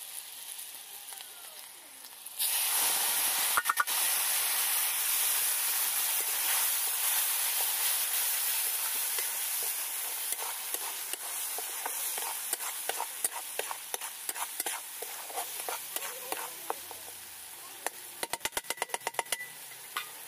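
Wet masala paste hits hot oil in a kadhai about two seconds in and sets off a loud sizzle that slowly dies down while a spatula stirs and scrapes it. Near the end the spatula gives a quick run of about ten taps on the pan.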